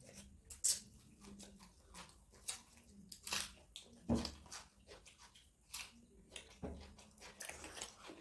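People chewing and eating a meal of mutton curry and rice: irregular wet smacks, crunches and small clicks of chewing close to the microphone.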